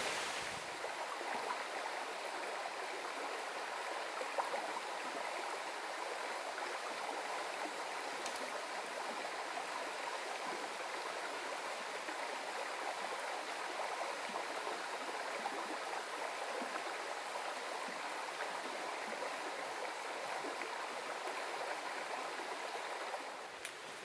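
Shallow creek water running steadily over a stony bed.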